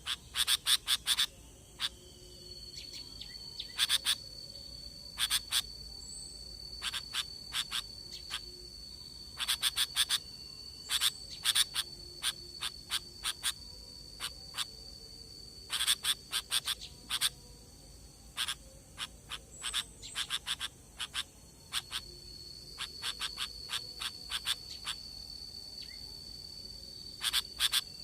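Sooty-headed bulbul calls: clusters of short, sharp chattering notes every second or two. Behind them runs a steady high-pitched buzz that drops out in the middle and returns near the end.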